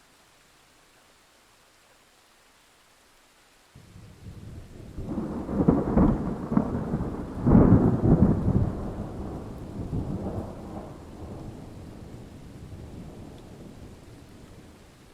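Thunder over faint steady rain: a rumble starts suddenly about four seconds in, swells into loud peals a couple of seconds later, then rolls away slowly.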